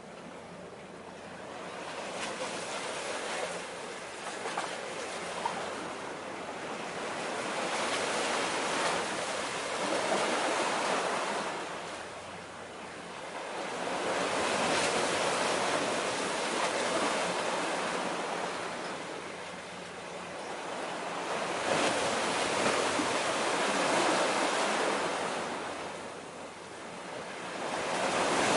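Waves washing against the shore: a rushing noise that swells and fades in slow surges about every six to seven seconds.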